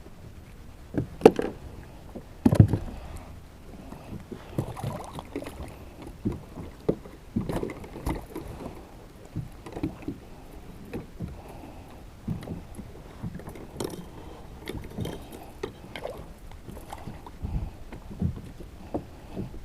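Irregular knocks, clunks and small water splashes from gear being handled on a fishing kayak, the two loudest sharp knocks about one and two and a half seconds in.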